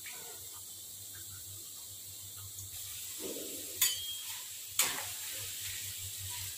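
Shredded taro strips sizzling in hot oil in a wok, stirred with a metal spatula. About halfway through, the metal clinks sharply against the wok twice, a second apart.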